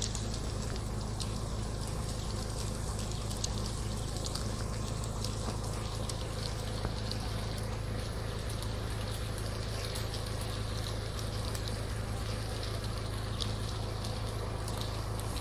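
Steady rush of flowing water with a low steady hum beneath it and a few faint ticks.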